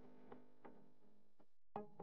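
Quiet background music of a few plucked-string notes, fading out; the loudest note comes near the end.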